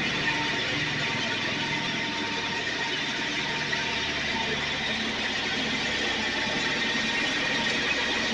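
John Deere LX 255 lawn tractor's 15 hp engine running steadily, with a thin steady whine over the engine noise.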